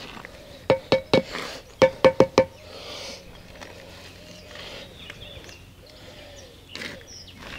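Rubber mallet tapping a hollow concrete block down into its mortar bed to level it: seven sharp knocks in two quick groups, about one and two seconds in, each with a short ring.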